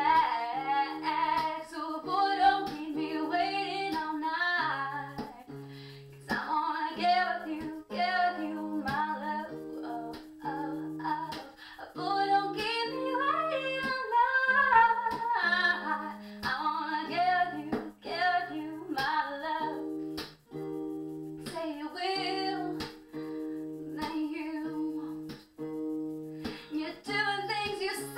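A woman singing a country-style original song, accompanying herself on acoustic guitar with held chords that change every second or so.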